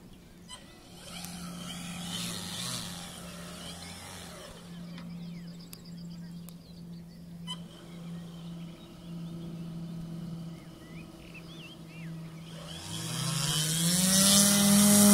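Electric motor and large propeller of a model tow plane humming steadily at low throttle, then spooling up with a rising pitch about thirteen seconds in and getting much louder as it opens up for the take-off run.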